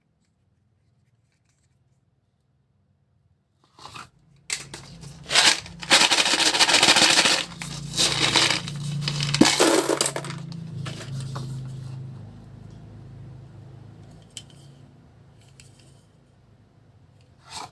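Plastic packaging being handled and torn open: crackling and tearing noises start about four seconds in, are loudest in the middle and die down, with a sharp click near the end.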